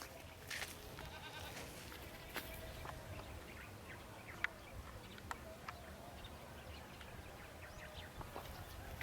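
Goats bleating faintly, with a few small clicks.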